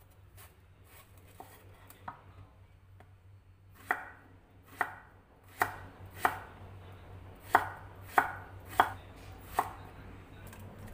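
Chef's knife cutting eggplant on a wooden cutting board. Light slicing strokes come first, then from about four seconds in the blade knocks sharply on the board about eight times, a little under a second apart.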